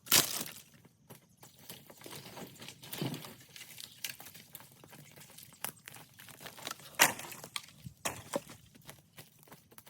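Dry brush and sticks being handled: irregular crunching and crackling, with sharp cracks of snapping wood as it begins and again about seven seconds in.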